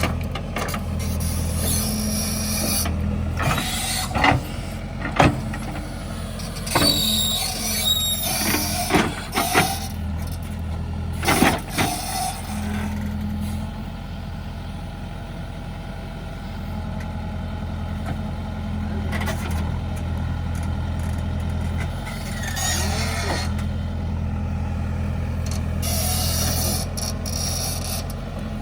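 JCB 3DX backhoe loader's diesel engine running steadily while the machine works, with sharp squeals, hisses and clatters from the working gear coming in bursts from about four to twelve seconds in and again near the end.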